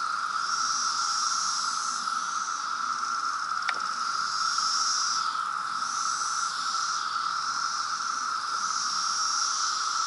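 Massed chorus of periodical cicadas: a steady droning buzz, with a higher buzz on top that swells and fades in waves every second or two.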